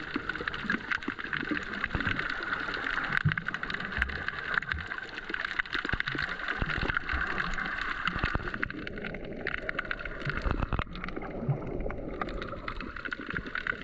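Underwater ambience picked up by a snorkeler's camera: a steady hiss dense with crackling clicks, with scattered low thumps and gurgles of moving water.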